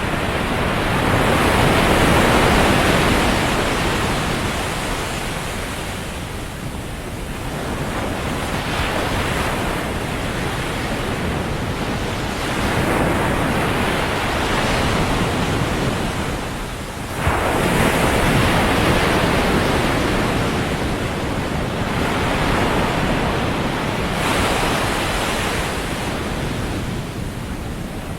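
Ocean waves breaking on a beach, the surf swelling and ebbing in several surges, one arriving sharply a little past halfway.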